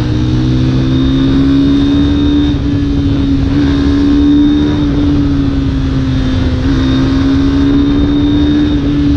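Yamaha motorcycle engine running steadily at cruising speed, its tone rising a little in the first second or two as the bike speeds up, with rushing wind and road noise on the microphone.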